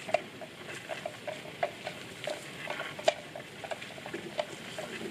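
Water buffalo grazing: a run of short, crisp crunches, about four a second, as it tears and chews grass.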